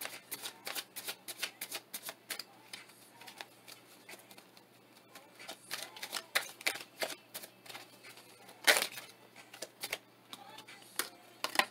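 Tarot deck being shuffled by hand: a quick, uneven run of card clicks and snaps, with a louder slap about nine seconds in.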